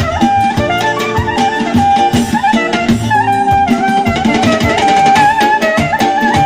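Live wedding-band music played on synthesizer keyboards: a traditional folk dance tune with an ornamented, clarinet-like lead melody over sustained chords and a steady drum beat.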